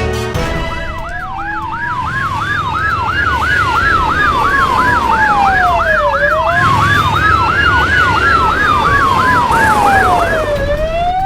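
Emergency vehicle sirens sounding together: one sweeps quickly up and down about three times a second, and the other rises and falls slowly over about five seconds, with a low rumble underneath. They cut off suddenly at the end.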